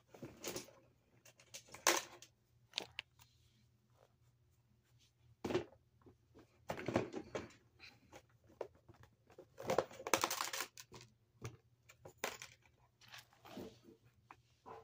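Hands handling small fidget toys and squishies and setting them down: scattered light clicks, taps and rustling. There are a few longer rustling scrapes, the longest about ten seconds in.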